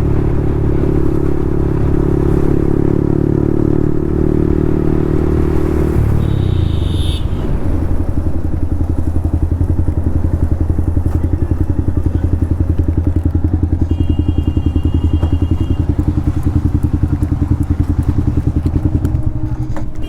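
Yamaha MT-15's single-cylinder engine through an Akrapovic full-system exhaust, held at a steady higher speed for about six seconds, then dropping to a steady, pulsing idle.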